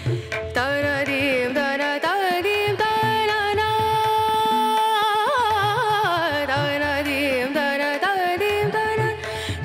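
Background music: a slow Indian classical-style melody with wavering, ornamented notes over a steady drone.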